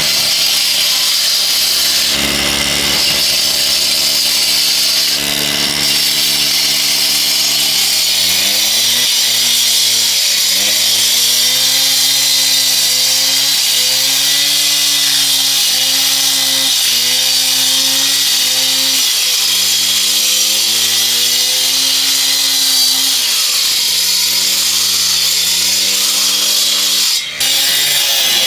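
Husqvarna K770 two-stroke power cutter running at high revs while its diamond blade cuts concrete, with a loud high hiss from the cut. The engine pitch dips and recovers again and again as the blade is loaded into the cut and eased off. There is a brief break in the sound near the end.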